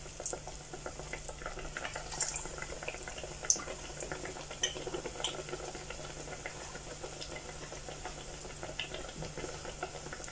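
Batter-coated potato slices deep-frying in hot oil in a stainless steel pot: a steady bubbling crackle with scattered pops and a few sharper clicks.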